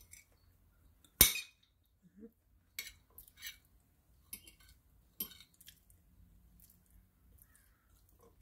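A metal fork clinking and tapping on a ceramic plate while picking at a piece of chicken: one sharp clink about a second in, then a string of lighter taps.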